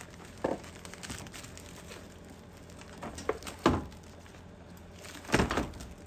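Spec-D Tuning plastic headlight assembly being handled and set into place, with a few knocks and rattles. The loudest comes about three and a half seconds in, and another cluster of knocks comes near the end.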